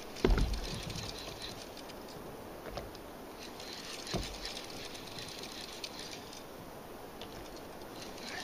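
Old DAM fishing reel being cranked, a fine, rapid ticking of its gears, with a dull low thump about a quarter second in and a softer one around four seconds in.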